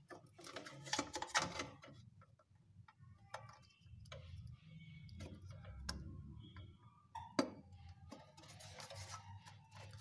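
Scattered plastic and metal clicks and knocks as a refrigerator compressor's starter relay is pushed onto its terminals and its sheet-metal bracket handled, with a sharp knock about seven seconds in, over a faint low hum.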